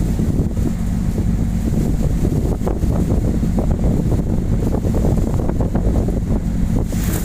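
Storm-force wind gusts buffeting the microphone in a loud, continuous low rumble, with a steady low hum underneath.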